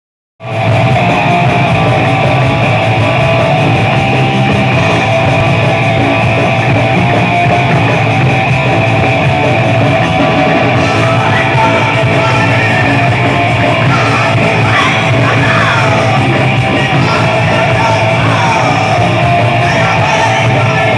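Live thrash metal band playing loud distorted electric guitars over drums, starting abruptly about half a second in. Yelled vocals join about two-thirds of the way through.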